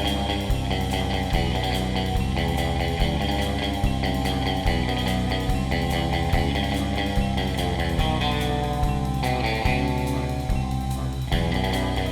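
Music: a rock-style band track with guitar, bass and a drum kit keeping a steady beat.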